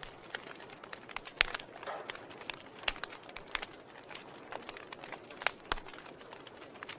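Wood fire burning in a fireplace, crackling: irregular sharp pops and snaps over a soft steady hiss, with the loudest pops about a second and a half in and again near five and a half seconds.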